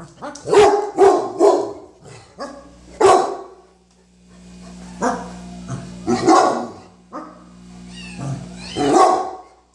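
A dog barking repeatedly: three quick barks, then single barks every second or two.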